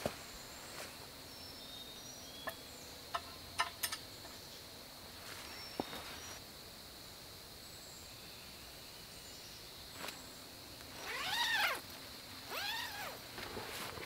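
An animal gives two short mewing calls, each rising then falling in pitch, about a second apart near the end. Under it are a steady high whine, faint high chirps and a few light clicks in the first few seconds.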